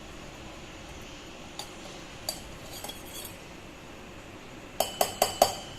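Metal kitchen utensils clinking while the boiled-down betel-leaf decoction is strained: a few light clinks, then four quick ringing taps near the end.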